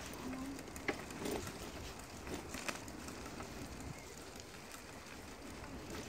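Bicycles rolling along a wet asphalt path: a low, even tyre and wind hiss with a few light clicks and rattles from the bikes.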